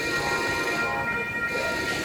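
MBTA MPI HSP46 diesel commuter locomotive running, a steady high tone held over the rumble and rail noise of the train.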